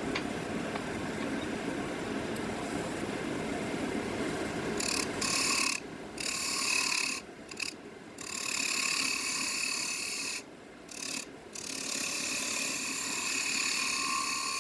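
Wood lathe running, and from about five seconds in a turning tool cutting the spinning segmented wood bowl blank: a hissing scrape with a faint steady whine, in several passes broken by short pauses as the tool is lifted off.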